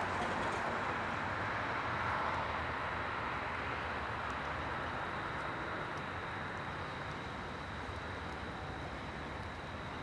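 Road traffic rushing past, a steady wash of vehicle noise that slowly fades, with a thin steady high whine behind it.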